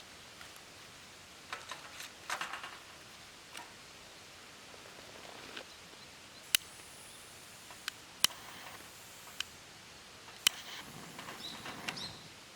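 Several sharp clicks or taps, the three loudest about two seconds apart, among short stretches of soft rustling over a steady faint background hiss.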